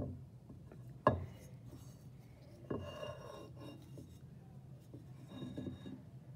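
Plaster model skull knocking and scraping on a hard benchtop as it is handled and turned over: two sharp knocks, the second about a second in, then a stretch of scraping and rubbing, and a shorter scrape near the end.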